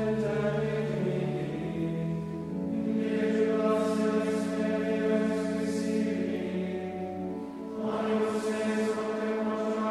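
Men's choir of seminarians singing the Latin psalmody of Compline in Gregorian chant, in unison on long held notes, with a short break for breath near the end.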